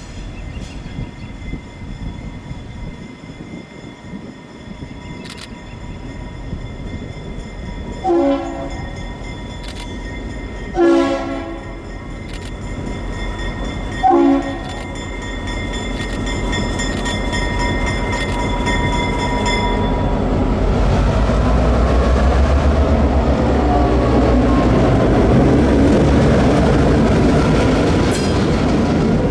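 Norfolk Southern GP38-2 diesel locomotive approaching and passing close by: a bell rings steadily, the air horn sounds three blasts with the middle one the longest, and the deep running of its EMD two-stroke diesel grows loud as the engine rolls past. The bell stops about two-thirds in.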